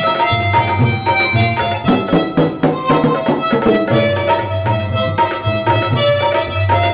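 Mouth organ (harmonica) playing a melody of held notes, accompanied by tabla keeping a steady rhythm with deep bass-drum strokes under sharper treble strokes.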